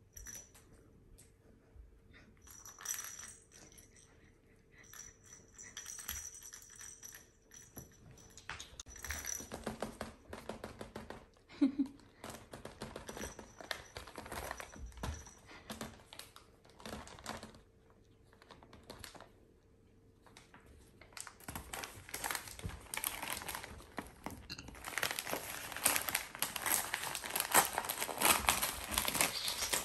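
Crinkling and rustling of wrapping material, in scattered bursts at first, then dense and louder over the last third.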